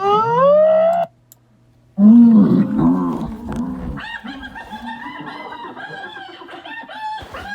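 Hyena calls: a whoop that rises in pitch for about a second and cuts off, a short silence, then lower calls and, from about halfway, a run of short high-pitched cackling giggles.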